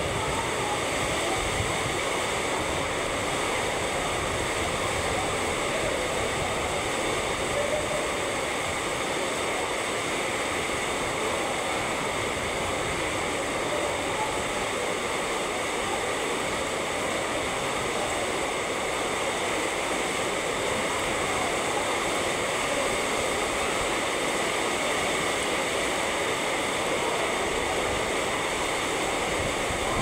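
Torrential rain pouring down steadily, an even, dense hiss with no break.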